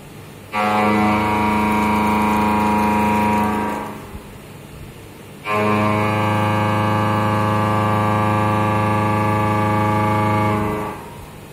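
Carbide-insert milling cutter on a CNC mill cutting into a metal block: a loud, steady buzzing hum sets in sharply as the cutter engages, runs about three seconds and dies away, then sets in again about five and a half seconds in for roughly five seconds more. Between the cuts only the machine's quieter running noise remains.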